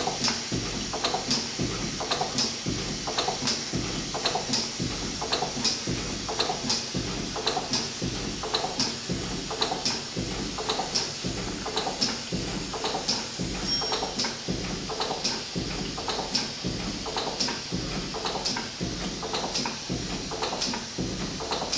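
1923 R. Wolf steam engine running at a steady pace, with an even, rhythmic beat of knocks and clicks from its moving parts.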